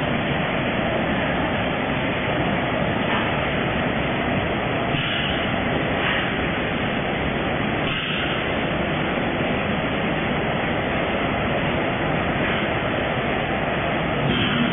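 Steady din of a running packing line: conveyor belts and packing machines.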